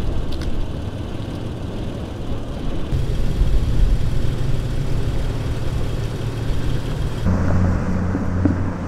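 Outdoor street sound of vehicles: a steady low engine hum over a traffic haze. The background changes abruptly about three seconds in and again near the end, where a louder steady hum sets in.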